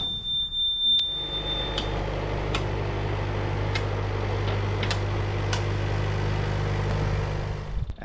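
The Green Climber LV500 Roboflail's engine running steadily after starting, with a high steady warning beep from the machine that stops at about two seconds in.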